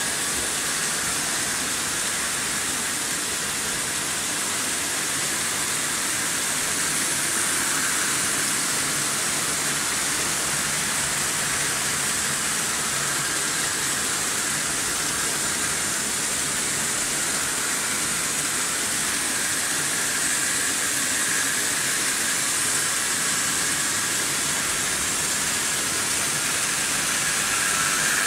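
Vintage Märklin H0 model trains running on stamped-metal M-track: a steady rolling hiss of metal wheels and pickup shoes on the track, with a higher whine that swells a few times.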